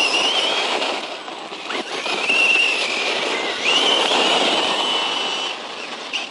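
Brushless electric motor of a 1/10-scale RC truck whining under throttle, with the tyres churning wet, soft dirt. It comes in three pushes: a rising whine at the start, another about two seconds in, and a longer, steadier one from about three and a half to five and a half seconds.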